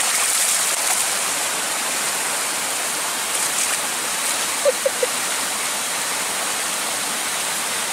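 River water rushing steadily, with two short chirps about five seconds in.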